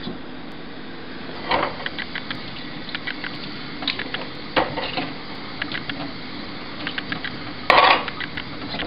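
Kitchen tap running into a stainless steel sink while dishes are scrubbed and rinsed, with scattered clinks and knocks of a pan and glasses against the sink and a louder knock near the end.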